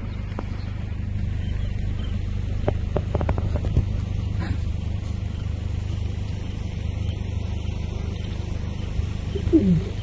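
Vehicle engine running at a steady low rumble, heard from inside the safari vehicle. There are a few faint clicks about three seconds in, and a short sound falling in pitch near the end.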